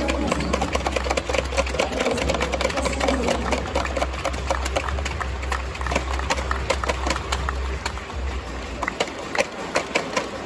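Arena crowd clapping: a dense patter of many sharp claps, over a deep bass hum from the PA that cuts out about nine seconds in.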